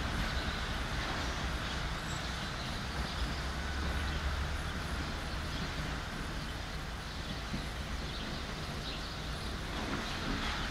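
Diesel railway engine running steadily, a low rumble under the open-air background of a rail yard.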